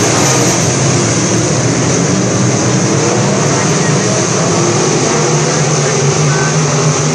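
A field of southern sport mod dirt-track race cars running around the oval: a loud, steady blend of many engines at once.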